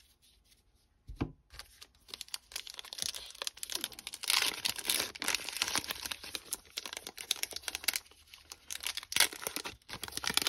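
Wrapper of a 2021 Topps Heritage baseball card pack being torn open and crinkled. A dull knock comes about a second in, then steady crackling and tearing, easing briefly about two seconds before the end.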